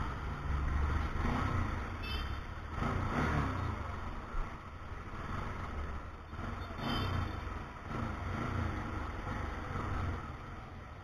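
A two-wheeler engine running at low speed, a low rumble that swells and eases every second or two.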